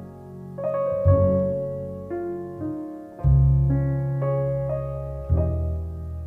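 Jazz piano playing a slow ballad: chords and short runs ringing out over deep low notes. New chords are struck about a second in, again about three seconds in, and once more just past five seconds.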